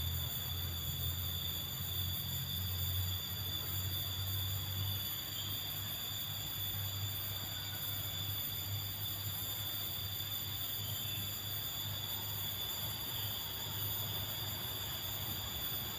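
Steady high-pitched whine made of several constant tones, unchanging throughout, over a low hum that eases slightly about five seconds in. This is the strange sound heard near the old tree.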